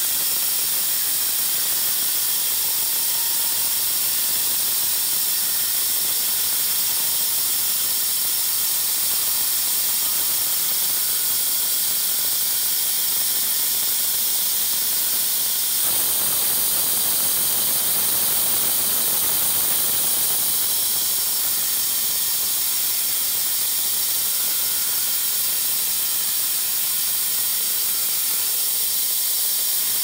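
Homemade sawmill attachment's saw cutting through a timber board to make feather-edge boards: a steady, high hiss of the blade in the wood with a mechanical rattle. About halfway through the sound suddenly grows fuller for several seconds, then settles back.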